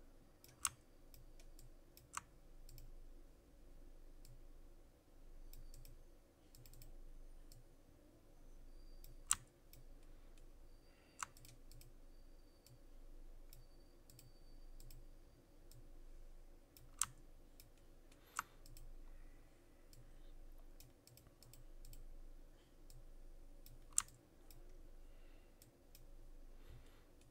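Computer mouse buttons clicking now and then, about seven sharp clicks spread out, over a faint steady hum.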